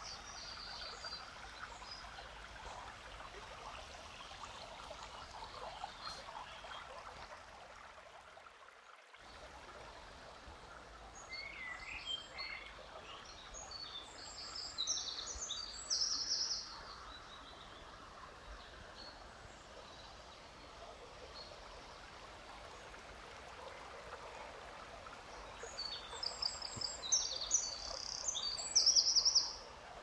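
Forest stream running steadily, with songbirds singing in quick runs of repeated high chirps: one spell about halfway through and a louder one near the end.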